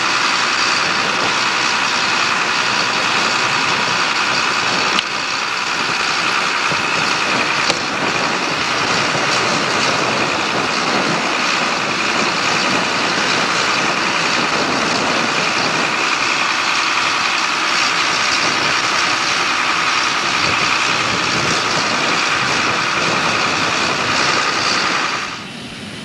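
A heavy engine running at a steady speed: a constant mechanical drone with several high whining tones over it, dropping off sharply near the end.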